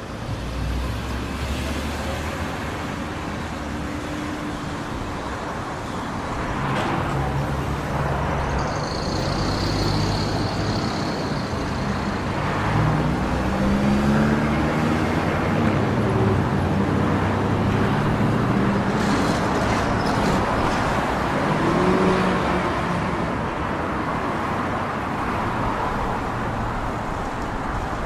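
Road traffic: vehicle engines running and passing, a steady mix of engine hum and road noise, with engine pitch rising and falling now and then through the middle.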